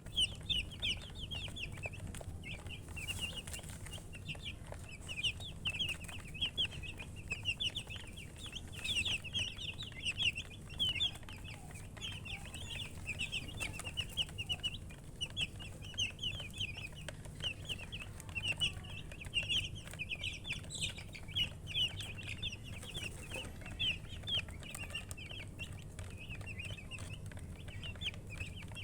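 A group of baby chicks peeping continuously, many short, high, quickly falling chirps overlapping one another without a break.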